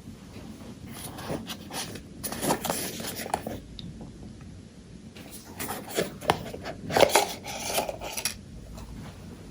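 A perfume box and its packaging being handled and opened by hand: irregular clicks, taps and rustles, busiest and loudest about six to eight seconds in.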